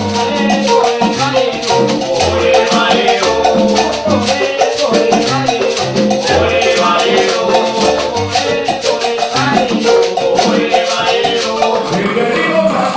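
Afro-Cuban salsa-style band music: a steady hand-percussion beat over a bass line and melodic parts.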